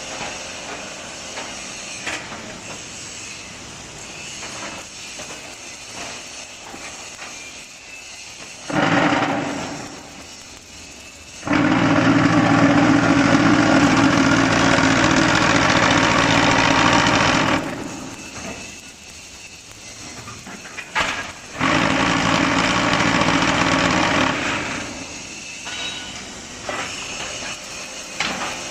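QTJ4-25D concrete block machine working through its cycle: its mould vibrators switch on with a loud, steady hum three times, briefly about nine seconds in, for about six seconds from about twelve seconds, and for about three seconds from about twenty-two seconds. Between the bursts the machine runs more quietly with light knocks and clanks.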